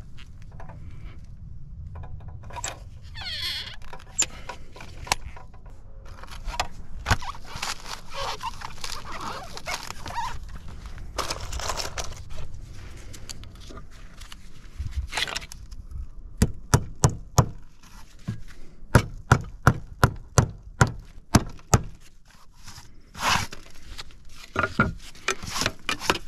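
Handling and scraping while sealant goes onto roof flashing, then about a dozen sharp knocks in two quick runs, about two a second, from driving roofing cap nails through the tile hook's deck flashing into the roof deck.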